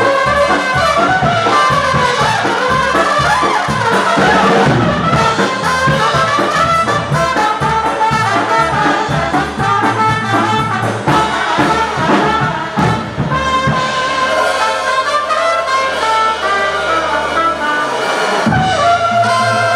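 Live Bavarian-style band music: trumpets playing the tune over accordion and a drum kit keeping a steady beat. About two-thirds of the way through, the beat drops out for a few seconds under held notes, then the full band comes back in just before the end.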